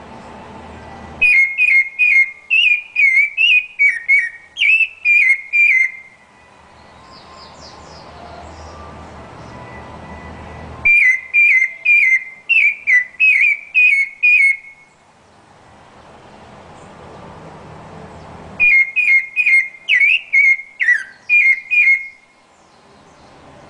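Rufous-bellied thrush (sabiá-laranjeira) singing: three phrases of clear whistled notes, each phrase a string of about eight to ten notes, separated by pauses of several seconds.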